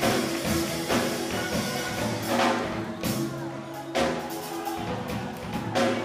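Live steel drum band playing: steel pans ringing over a drum kit, with loud drum and cymbal hits about once a second.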